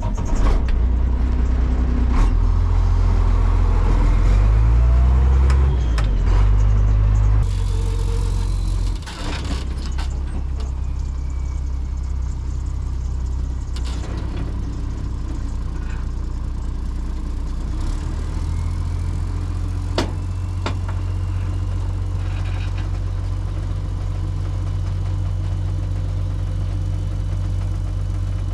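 A vehicle engine running, louder with its pitch stepping up and down for the first seven seconds or so, then settling into a steadier, slightly quieter run. A few sharp clicks and knocks come through over it.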